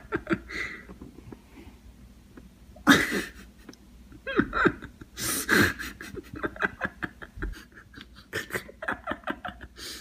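A person laughing in bursts, with breathy snickers and a quick run of repeated laugh pulses in the second half.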